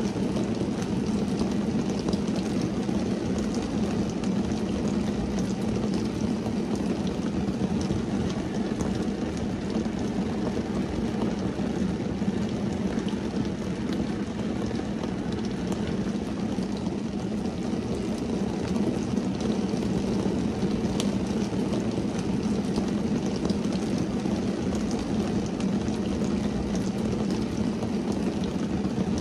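Steady rain drumming on a car's windscreen and roof, heard from inside the car: a dense, even patter with scattered individual drop ticks.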